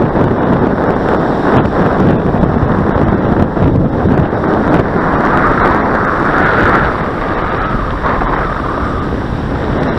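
Strong wind buffeting the microphone, a loud, rough rumble throughout, with a faint higher whine rising over it for a few seconds past the middle.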